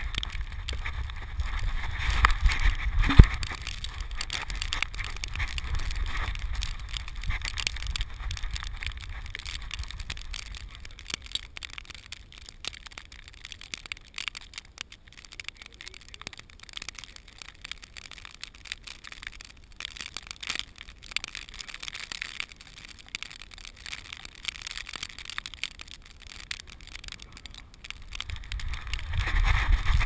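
Rustling and knocking of a camera worn on a dog's back as the dog moves through snow: fur and harness rubbing on the camera, with many short crackly clicks. A low rumble is strongest in the first few seconds and again near the end.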